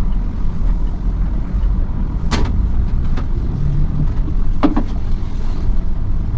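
Mitsubishi Fuso tour coach driving, heard from inside the cabin as a steady low engine and road rumble, with two sharp clicks or knocks about two and a half and four and a half seconds in.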